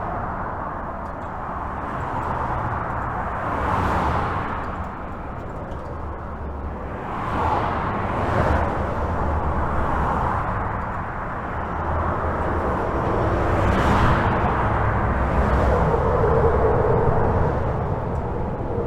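Highway traffic heard from under a bridge: a continuous wash of tyre and engine noise over a low rumble, with single vehicles swelling past every few seconds and a faint steady drone from one of them near the end.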